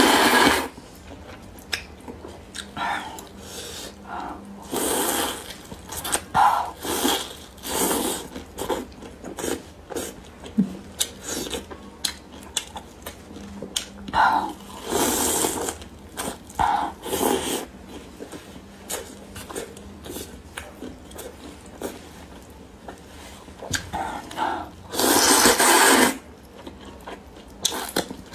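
A person slurping soupy rice noodles, with long wet slurps at the start, about 15 seconds in and about 25 seconds in, and chewing and mouth sounds in between.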